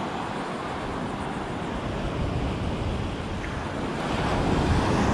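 Small, calm surf breaking and washing up the sand, a steady rush that swells near the end, with wind buffeting the microphone.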